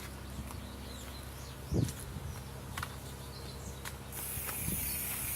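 Outdoor ambience with faint bird chirps and scattered small clicks, and a single low thump about two seconds in. Near the end a steady hiss sets in.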